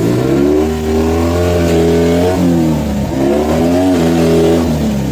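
Off-road buggy engine revving twice: the pitch climbs, drops about two and a half seconds in, climbs again and falls away near the end.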